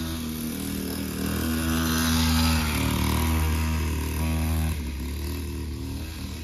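Small child's dirt bike engine running at an even, low speed as the bike rides around. It grows louder about a second in as the bike comes close, then drops back near the end as it moves away.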